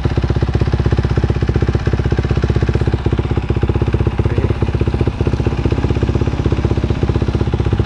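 2017 Honda CRF450R's single-cylinder four-stroke engine idling through a Yoshimura exhaust, a steady, even beat that does not change, as it warms up after a cold start.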